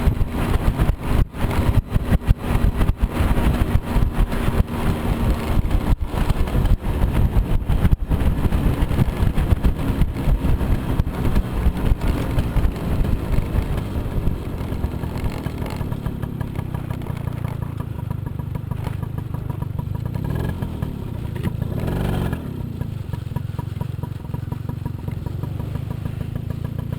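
Moped scooter's small engine running while it is ridden over a rough dirt trail, with frequent knocks and clatter from bumps in the first half. It then settles to a steadier drone, with a brief rev about three-quarters of the way through.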